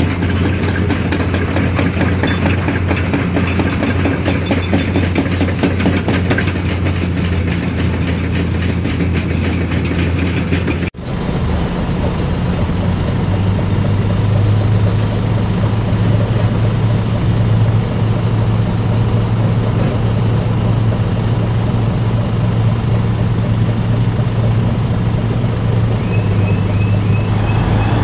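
Heavy diesel engine of earth-moving machinery running steadily with a deep drone, and a rapid clatter over it for the first part. After a sudden cut about eleven seconds in, a steadier drone follows. Near the end a reversing alarm begins beeping.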